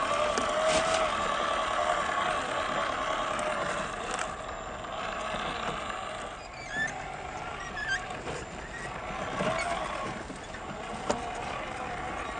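Electric motor and gear whine of a WPL C74-1 1/10-scale Suzuki Jimny RC car driving, the pitch wavering with throttle. It gets quieter after about four seconds, and a sharp click comes near the end.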